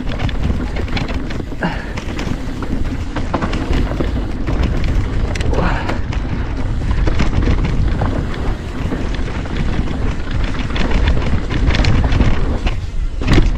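Wind buffeting the camera microphone over the rumble of a YT Decoy e-mountain bike rolling down a dirt singletrack, with frequent short clatters and knocks from the bike over bumps.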